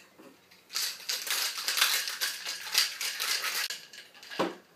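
A Boston shaker (metal tin over a mixing glass) being shaken hard, ice rattling inside in a fast, even rhythm for about three seconds, then one knock near the end.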